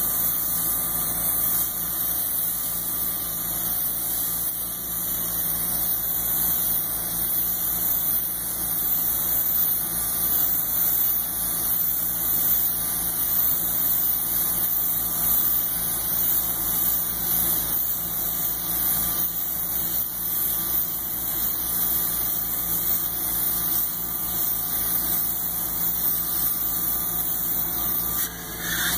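Steady high-pressure hiss of a polyurea spray gun atomizing coating onto a steel tank, over the steady drone of the spray rig's engine and pump. The hiss briefly dips near the end.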